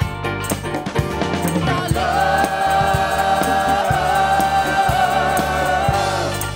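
Live rock band with several singers singing together over drums and guitars. About two seconds in the voices hold one long note together, which ends near the end.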